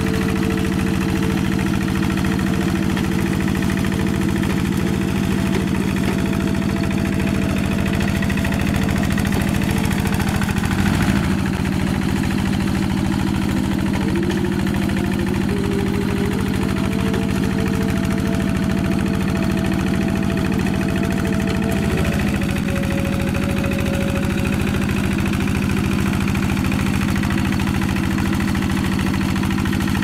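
Single-cylinder Kubota-type diesel engine of a two-wheel walking tractor running at a steady speed while it drags a rake through wet paddy mud.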